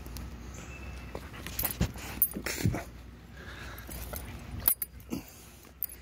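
German Shepherd whimpering and making small sounds while playing, with several short sharp knocks and rustles.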